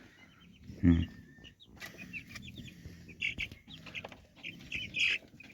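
Chickens clucking and chirping, with many short high calls following each other quickly through the second half.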